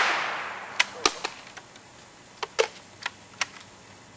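The fading echo of a gunshot fired just before, followed by about seven light, sharp clicks scattered over the next few seconds.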